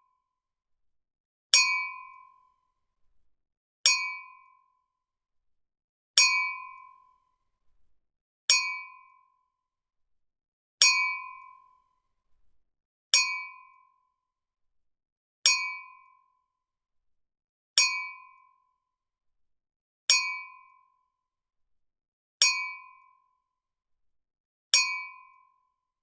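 Wine glasses clinking together in a toast: a single bright clink, ringing briefly at two clear pitches and fading within about a second, repeated the same way about every two and a quarter seconds, eleven times.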